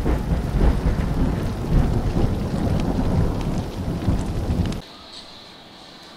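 Thunder-and-rain sound effect: a heavy rumble of thunder over rain, with sharp crackles. It cuts off suddenly about five seconds in, leaving only faint room noise.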